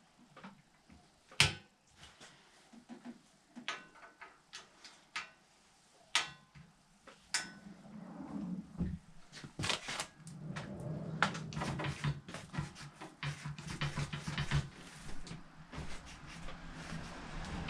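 Hand tools and metal bike parts clinking and knocking, scattered at first with one sharp knock about a second and a half in, then a busier run of clatter in the second half.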